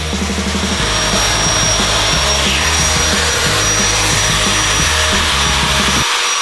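Corded electric sheet-metal shear running with a steady high whine as it cuts into the thin steel back of a refrigerator. Background music with a beat plays underneath and stops about six seconds in.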